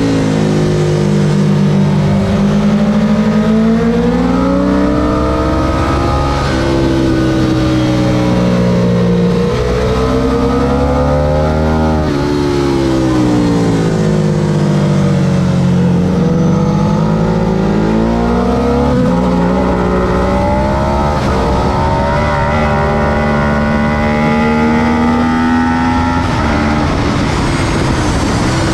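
Ducati 999S's L-twin engine under hard riding, the revs climbing and falling again and again, with stepped jumps in pitch between gears.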